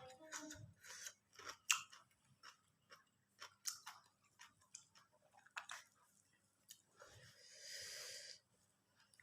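Close-miked chewing and crunching of food, with soft irregular mouth clicks and smacks. About seven seconds in comes a longer, breathy hiss lasting about a second.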